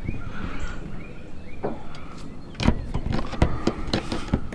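A few irregular metallic knocks and clicks from a nut being tightened onto a bolt through a box truck's thin aluminum roof, the bolt head held from above with a screwdriver. The knocks start about halfway through.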